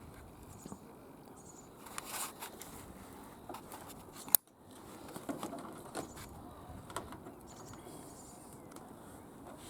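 Faint scattered clicks and small handling noises of hands-on work, with one sharp click about four seconds in.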